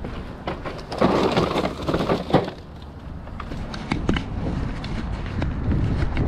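Plastic bags rustling and crinkling as they are handled, loudest in a burst from about one to two and a half seconds in, then footsteps on asphalt with a few sharp clicks.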